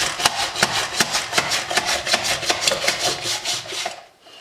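An onion in a mandoline slicer's safety holder pushed back and forth over the blade, set for coarse slices: quick, even scraping strokes, about four or five a second, that stop just before the end.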